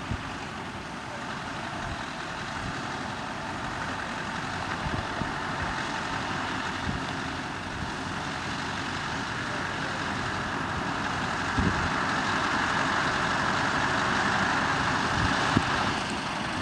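Scania prime mover pulling a loaded low-loader trailer, its diesel engine running at low speed as it rolls slowly closer on gravel, getting steadily louder, with a couple of brief knocks.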